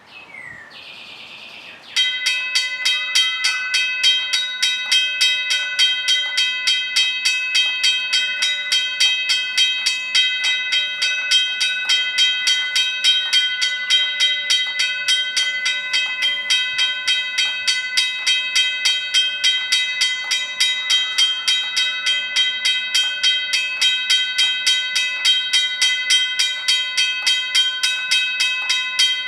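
Railroad crossing bell ringing steadily, with fast, evenly spaced strikes over a clear ringing tone. A short hiss comes first, and the strikes start about two seconds in.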